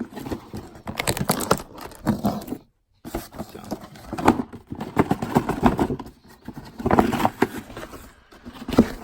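Packaging of a firework artillery-shell kit being worked open by hand: irregular crackling, rustling and clicking of plastic and cardboard, broken by a brief silent gap about a third of the way in.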